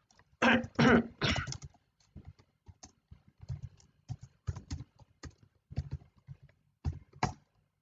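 Typing on a computer keyboard: a string of irregular keystroke clicks, the loudest cluster about a second in, then lighter, evenly paced keystrokes.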